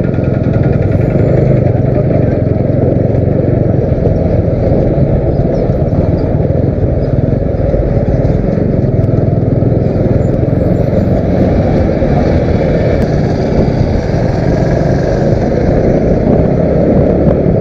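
Motorcycle under way, with a steady low rumble of engine and road noise.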